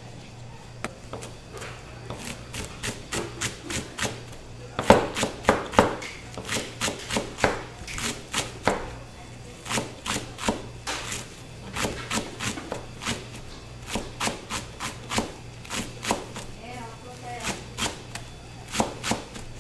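Chef's knife chopping green onions on a plastic cutting board: a steady run of sharp knocks, about two a second, starting about five seconds in after a few scattered knife clicks.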